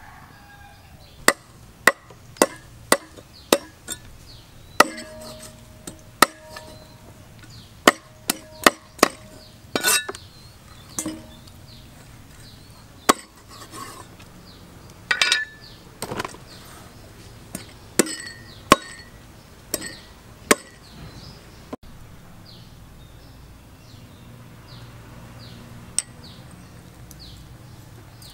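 A meat cleaver striking a whole raw chicken on a round wooden chopping block: about two dozen sharp, irregular chops, some with a short ring, over the first twenty seconds. Then the chopping stops.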